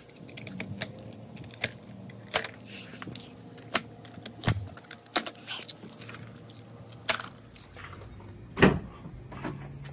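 Scattered sharp clicks and knocks from handling a rolled rubber truck-bed mat as its plastic strap is cut, with one loud clunk near the end as the pickup's tailgate handle is worked.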